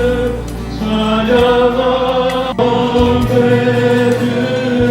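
A group singing a Christian worship song in unison, with instrumental accompaniment and a bass line under it, holding long notes between lines.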